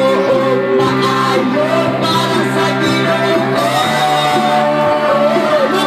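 Praise and worship song played live through amplifiers: electric guitar and band backing under a man singing a melody into a microphone.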